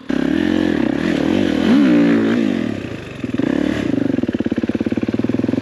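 Dirt bike engine revving up and down in a few throttle blips, then running at lower revs with an even, rapid chugging pulse.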